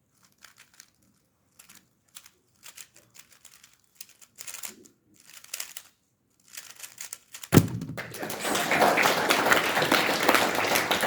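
Faint scattered clicks and rustles, then about seven and a half seconds in a sudden thump followed by loud, sustained applause from a crowd.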